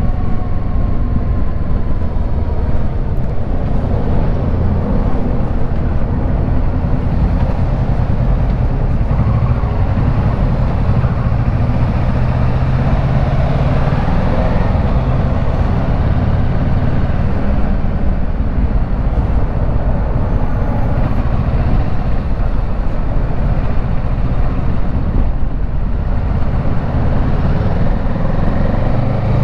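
Kawasaki Versys 650 parallel-twin engine running steadily while the motorcycle rides through traffic, with heavy wind rumble on the camera microphone.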